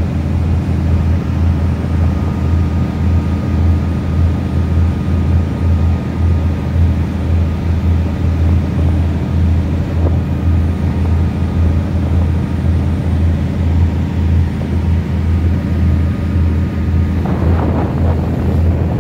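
Ship's engine running with a steady deep hum, heard on deck, over the rush of the churning wake and wind on the microphone. About two seconds before the end, the rushing water and wind noise grows louder.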